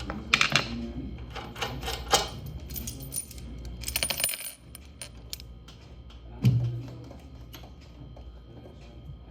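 A run of sharp metallic clinks and knocks over the first four and a half seconds, then a single heavier thud about six and a half seconds in.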